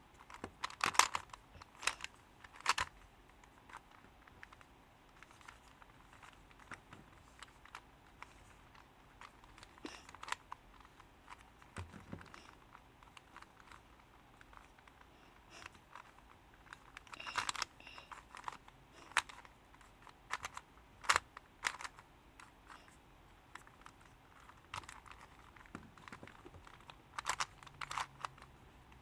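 A Ghost Cube, a shape-mod 3x3 plastic twisty puzzle, being turned by hand: irregular plastic clicks and clacks as its layers turn, coming in quick clusters with short pauses between.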